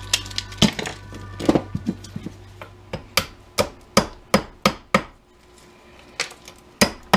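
Sharp knocks of a hand tool breaking apart a ferrite core held against a steel bench vise: a couple of single strikes, then a quick run of about three a second, then a few more near the end.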